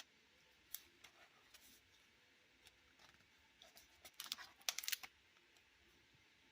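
Pages of a thick art journal being turned: soft paper rustles and crinkles, with a louder cluster of crackling about four to five seconds in.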